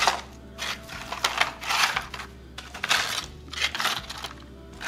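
Crisp fried corn tostadas clattering and scraping against one another as they are set down one by one into a stack, in about four short bursts.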